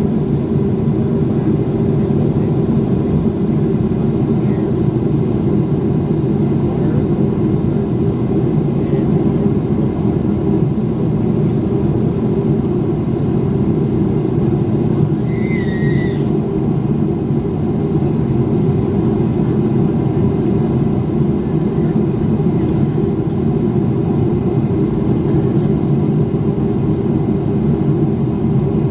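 Steady cabin roar inside a Boeing 777-300ER in flight, heard beside the wing: its GE90 turbofans and the air rushing past the fuselage make an even, deep noise that does not change.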